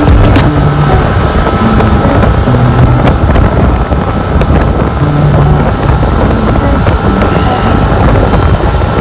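Speedboat engine running at speed, with wind rushing over the microphone.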